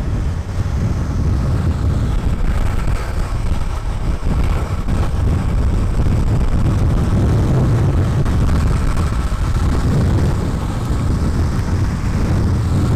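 Wind rushing over the microphone at downhill speed, with the steady rumble of urethane skateboard wheels rolling on smooth asphalt.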